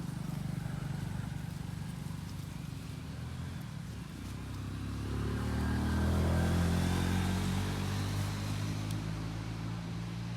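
A motor vehicle's engine running steadily, growing louder about halfway through as its pitch rises, then easing off slightly.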